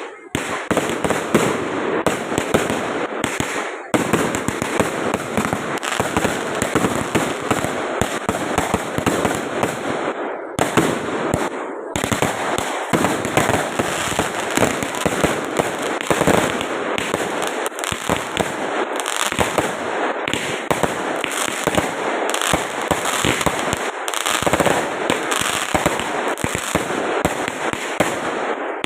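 Fireworks going off in a dense, continuous barrage of crackles and bangs, briefly dropping away about 4 and 12 seconds in.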